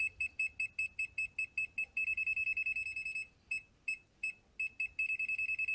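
Non-contact voltage (NCV) beeper of an ANENG PN128 clamp multimeter sounding as it senses voltage near a cable: high-pitched beeps about five a second that run together into a steady tone, break up into a few scattered beeps in the middle, then hold a steady tone again near the end. The detector is very sensitive.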